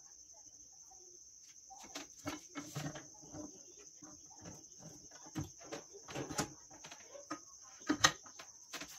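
Irregular knocks and scraping clicks of metal against the stacked handle as the dagger's tang is worked down into it, clamped in a bench vise; they begin a couple of seconds in and are loudest near the end. Crickets trill steadily in the background.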